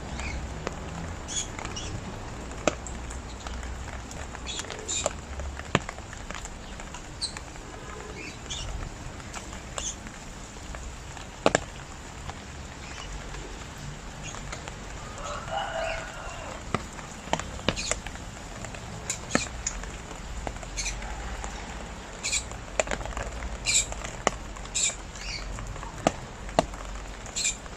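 Rain falling steadily, with irregular sharp ticks and drips of drops striking a hard surface.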